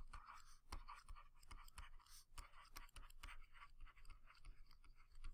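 Faint, irregular taps and scratches of a stylus writing by hand on a tablet or pen-display surface.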